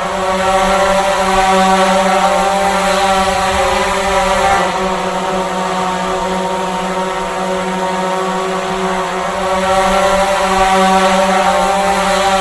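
Drone flying, its propellers giving a steady buzzing whine that swells a little louder twice, with slight shifts in pitch.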